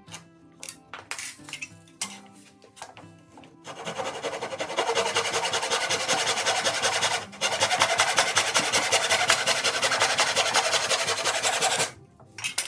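Over background music, a power tool starts up about four seconds in and runs loudly and evenly for about eight seconds, stopping briefly once near the middle.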